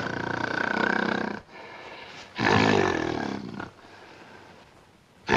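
Gorilla roar sound effect from a comedy film, heard twice: a first roar that breaks off about a second and a half in, and a second, rising-then-falling roar about a second later.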